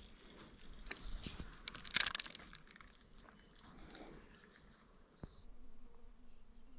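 A light spinning rod and reel being handled and cast: scattered clicks and rustles with a brief loud rush of noise about two seconds in. After a sharp click about five seconds in, a flying insect buzzes with a faint steady hum.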